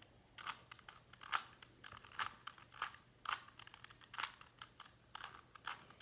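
Rubik's Cube layers being turned by hand: a quick, irregular run of light plastic clicks, a few each second, as the faces snap round.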